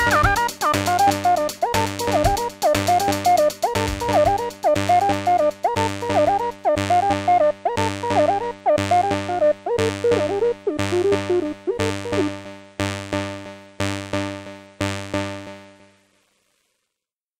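Electronic synthesizer music: a repeating synth pattern over a drum machine beat and a steady bass, fading out over the last few seconds and ending about 16 seconds in.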